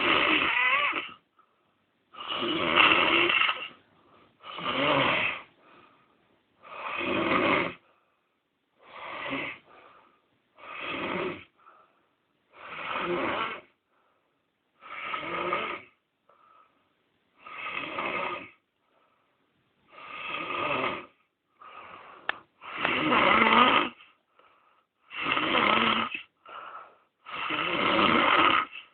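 A man snoring in his sleep, one snore roughly every two seconds with silence between, some snores louder than others.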